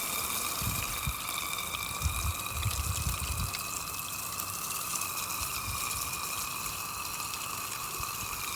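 Water spraying hard from a hose into a rain gutter, a steady hiss with a faint whistling tone, flushing the gutter to test freshly sealed holes for leaks.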